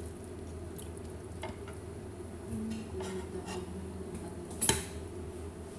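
Plates and cutlery clinking at the table as people eat: a few light clinks and knocks, the sharpest about three-quarters of the way through, over a steady low hum.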